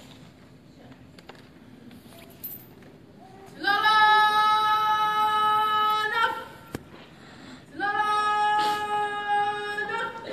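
Women's voices singing two long held notes at one steady pitch, each lasting about two and a half seconds with a short break between, after a few seconds of quiet room noise.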